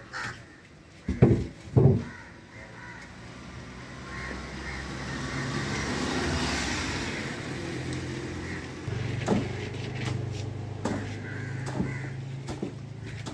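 Road traffic: a vehicle passing, its noise swelling and fading over several seconds, followed by a steady low engine hum, with crows cawing. Two sharp thumps about a second in are the loudest sounds.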